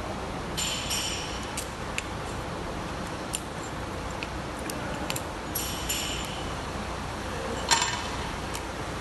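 Small steel bolts and washers clinking and ringing as they are handled and pushed through a pump's air valve cover, with a few sharp ticks between; the loudest clink comes near the end as the bolted cover meets the valve body.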